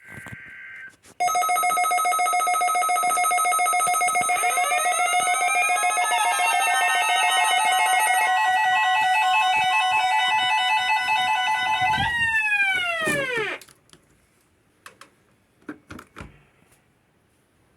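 Several weather alert radios sounding their alarms at once, set off by the NOAA Weather Radio weekly test: loud, rapidly pulsing beeps at several pitches, with a rising siren-like wail joining about four seconds in. All of them slide down in pitch and stop together around twelve to thirteen seconds in. A brief burst of data tones comes right at the start.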